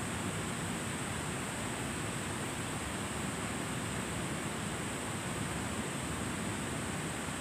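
Steady rushing of a flowing river over shallows, an even wash of water noise, with a steady high hiss above it.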